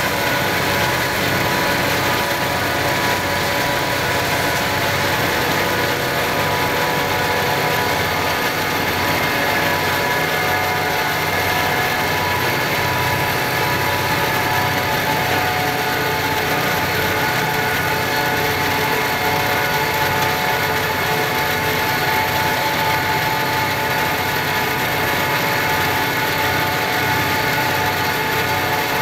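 Steady diesel engine drone with several held tones that drift slightly in pitch. A freight locomotive heard from a vehicle pacing alongside it, mixed with road noise.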